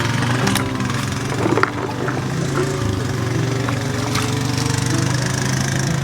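Small engine running steadily, with a few sharp clicks or knocks about half a second and a second and a half in.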